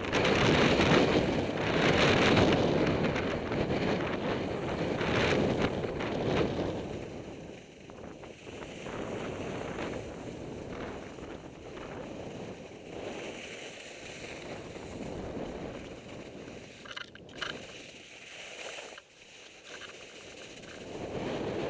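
Wind rushing over a helmet-mounted microphone and skis scraping and hissing over thin, hard-packed snow. Louder for the first seven seconds or so, then quieter.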